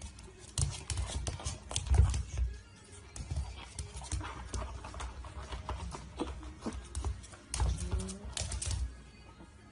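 Pug nosing and shoving a canvas sneaker across a wooden floor: irregular knocks, thumps and scrapes of the shoe on the boards, mixed with the dog's own noises.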